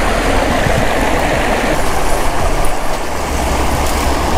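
Shallow creek water rushing steadily, with a low rumble underneath.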